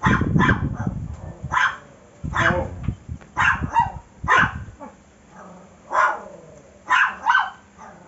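A dog barking in short single barks, about ten in all, irregularly spaced with a quick double bark near the end. A low rumbling noise lies under the barks in the first half and stops about halfway through.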